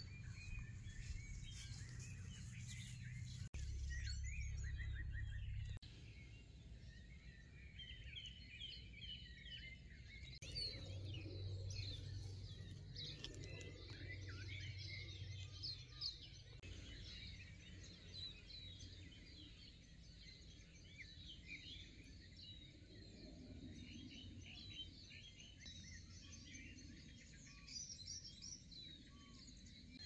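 Faint songbird chorus outdoors: many small birds chirping and twittering in quick short notes throughout, over a low rumble that is heavier in the first half.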